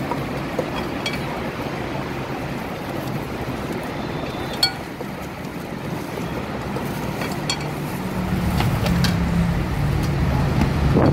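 Steady roar of road traffic, swelling louder near the end as a heavier vehicle passes, with a few sharp clinks.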